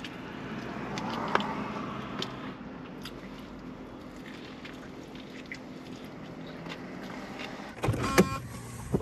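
Steady low hum inside a parked minivan's cabin, with a vehicle passing outside about a second in and a few faint clicks. Near the end comes a burst of louder clicks and handling clatter.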